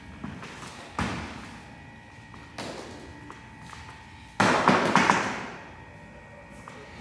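Practice swords knocking together in a stage fight: a few dull strikes, then, about four and a half seconds in, a louder clatter lasting about a second as one sword is knocked out of a hand and hits the floor.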